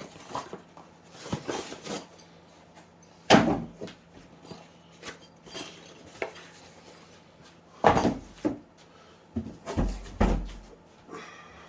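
Irregular knocks, taps and clatters of crossbow parts and tools being handled during assembly, with three louder knocks about three, eight and ten seconds in.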